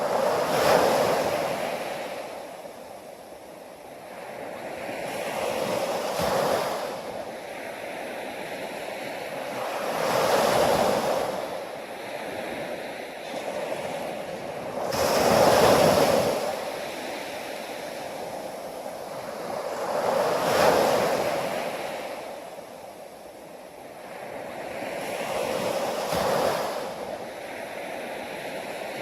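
Ocean surf breaking on a shore: each wave swells into a loud wash and falls away, about every five seconds, six waves in all.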